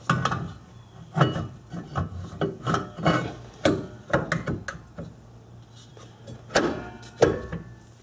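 A new Bosch brake rotor clunking and clinking against the wheel studs and rear hub as it is slipped on and seated. The knocks are irregular, a few each second, with a quieter spell a little past the middle.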